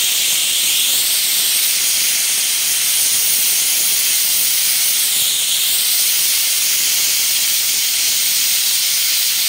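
Prestige pressure cooker on a gas burner letting off steam through its weight valve: a loud, steady, high-pitched hiss. This is the cooker's whistle, the signal that it has come up to pressure and the dal khichdi is cooked.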